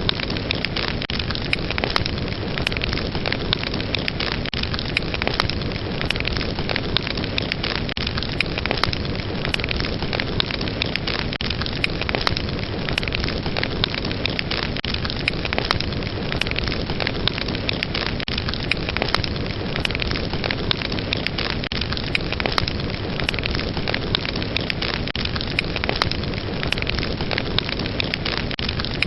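Fire burning with a steady rushing hiss and frequent sharp crackles and pops.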